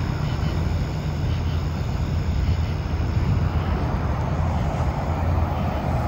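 Steady low rumble with a hiss above it, unchanging and without distinct events.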